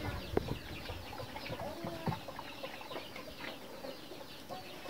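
Chickens clucking, with many short high calls throughout and a couple of sharp clicks.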